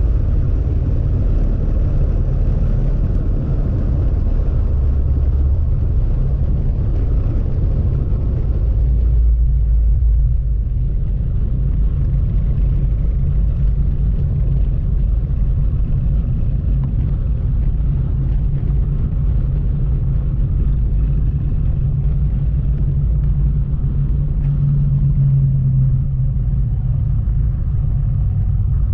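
Motorcycle riding at road speed: a steady low engine rumble mixed with wind noise on the microphone, with the engine note rising briefly near the end.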